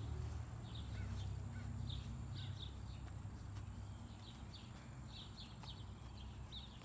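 Backyard ambience: small birds chirping in short high bursts, often two or three at a time, over a low steady hum.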